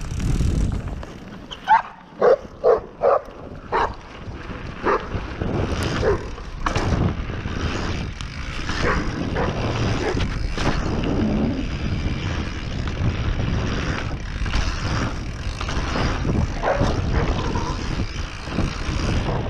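A dog barking, first a quick run of about five barks a couple of seconds in, then more scattered barks, over a steady rush of wind and tyre noise.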